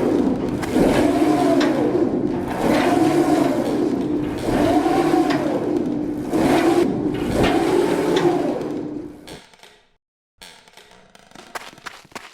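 A large bell ringing, struck about every two seconds, its tone wavering up and down with each swing; it dies away about nine seconds in, leaving a few faint knocks.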